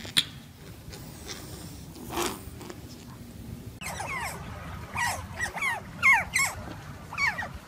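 Several otters chirping, a rapid run of short, high squeaks that begins about halfway in. Before that there is only a sharp click and a brief rush of noise.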